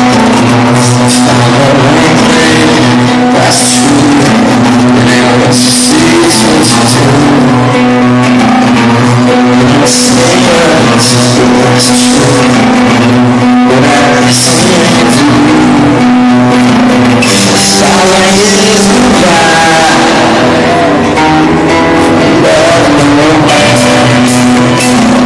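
Live rock band playing a song: acoustic guitar and lead vocals over a steady beat, heard loud from the audience.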